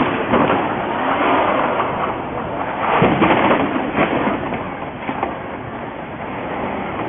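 Vehicles on a snow- and ice-covered street: engine and tyre noise that swells about three seconds in, with a few sharp knocks.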